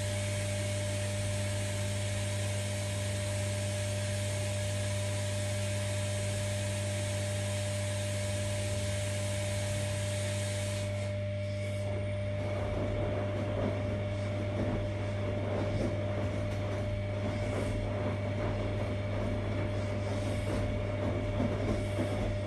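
Primus RS16 front-loading washing machine running with a steady hum. A broad hiss stops suddenly about eleven seconds in, and a rustling, crackly tumbling noise from the drum follows.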